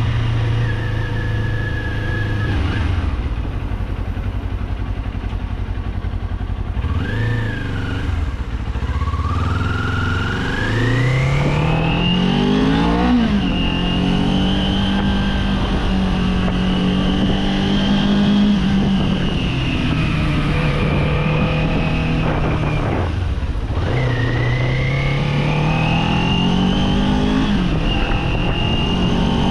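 Kawasaki Z400 parallel-twin motorcycle engine riding under way. It is lower and slower for the first several seconds, then climbs steeply in revs under acceleration. After that it holds a steady cruise, drops abruptly a little after twenty seconds in, and climbs again near the end.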